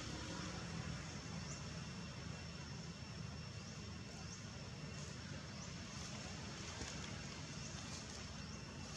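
Steady outdoor background noise with a low hum underneath, and faint short high chirps every second or so.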